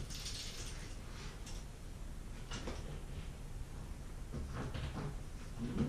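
Faint handling noises as fishing gear is handled: a few soft, scattered knocks and rustles.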